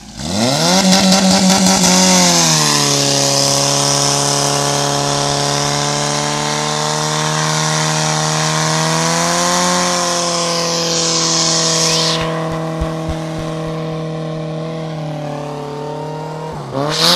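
Fire-sport pump engine revved hard to full throttle, its pitch climbing steeply in the first second, then settling slightly lower and holding steady under load as it pumps water through the hoses. A high hiss runs with it until about twelve seconds in. The engine note drops sharply near the end.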